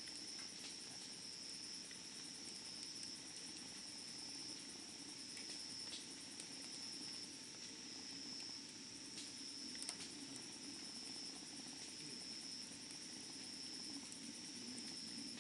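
Wood campfire burning, with a few sharp crackles and pops scattered through, over a steady high trill of crickets.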